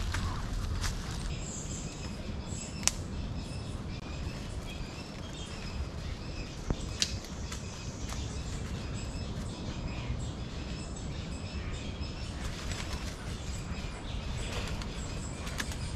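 Birds chirping in short repeated calls over a low steady rumble, with a couple of sharp clicks about three and seven seconds in.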